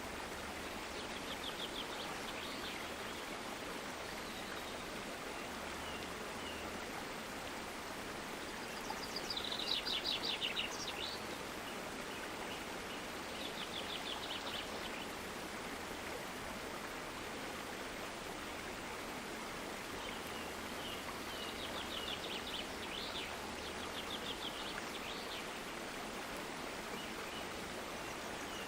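Water running steadily in a stream, with songbirds singing short rapid trills now and then, the loudest burst of song about ten seconds in.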